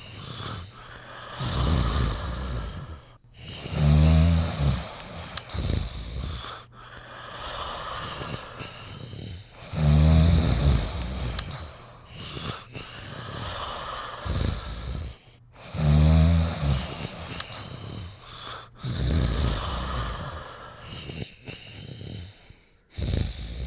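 Sleepers snoring with deep, fluttering snores. A loud snore comes about every six seconds, with a softer one in between each.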